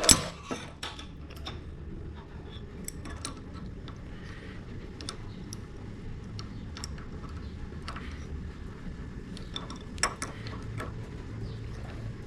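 Scattered light metallic clicks and clinks of an air nibbler's steel parts and hand tools being handled while its new anvil and die are set and tightened. A sharper knock comes at the start and another about ten seconds in.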